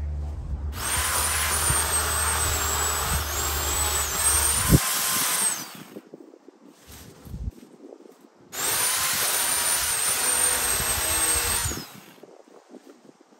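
Sun Joe SWJ800E 6.5-amp electric pole chainsaw running as it cuts tree branches: a high motor whine over chain noise for about five seconds, then again for about three seconds, starting and stopping sharply each time.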